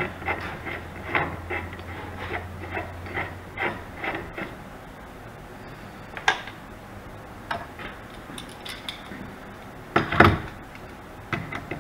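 Small metallic clicks and clinks as a threaded metal collar is turned onto the wood lathe's spindle by hand, with a low hum under them for the first few seconds. About ten seconds in comes a louder metal clatter as a pair of channel-lock pliers is picked up.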